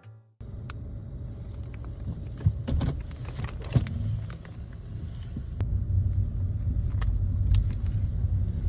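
Low, steady rumble of a vehicle in motion, with scattered clicks and light rattles; the rumble gets louder a little past halfway.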